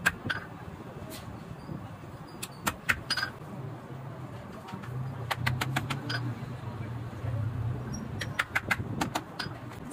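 Sharp taps and knocks of a cobbler's hammer and leather pieces on a stone working block, in scattered clusters with a quick run of light taps near the end. A low hum sits underneath for a few seconds in the middle.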